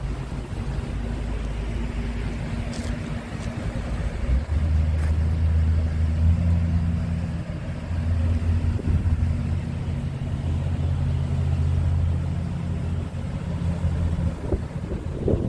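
Diesel engine of a Scania R truck idling steadily, a low hum whose tone changes about four seconds in.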